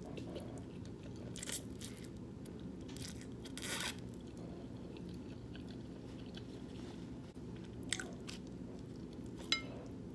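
Close-up eating sounds: chewing and a few crisp crunching bites, most likely of the cheesy seeded bread, over a steady low hum.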